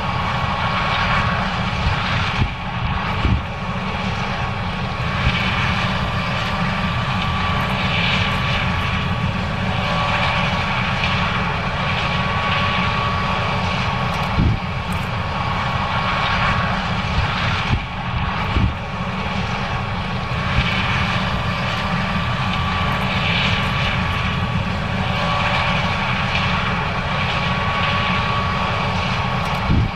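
John Deere S790 combine running while harvesting corn: a steady engine and machinery drone with a constant high whine and a few brief knocks.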